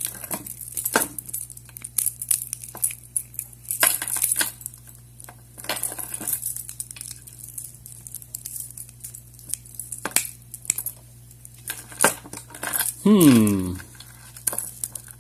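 Small metal keys clicking and clinking against each other and against a vintage padlock as warded skeleton keys are handled and tried in the lock. About 13 seconds in there is a short vocal sound that falls in pitch.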